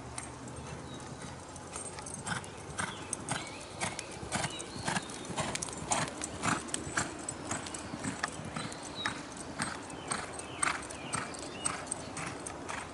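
Hoofbeats of a ridden reining horse on a soft dirt arena: an uneven run of hoof strikes, several a second, strongest in the middle.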